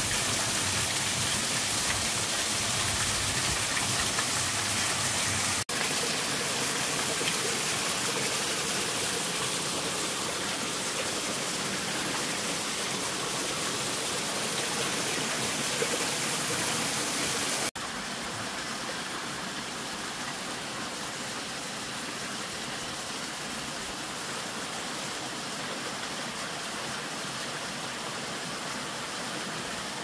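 Small waterfall in a mountain stream pouring over mossy rocks into a pool: a steady rush of falling and splashing water. The sound shifts abruptly twice, and from about two-thirds of the way in the rush is a little quieter and softer.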